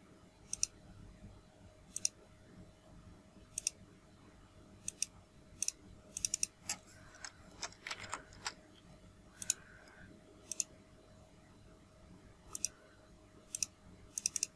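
Computer mouse clicks, scattered and irregular, several coming in quick pairs like double-clicks, over a faint steady hum.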